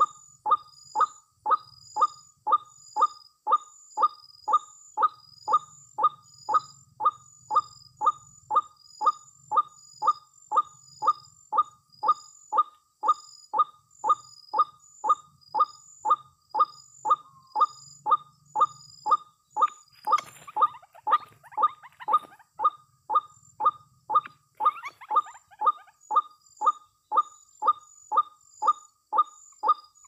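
White-breasted waterhen call, a single 'kwak' note repeated very evenly about three times every two seconds without a break. A brief scratchy, higher sound joins it about twenty seconds in and again a few seconds later.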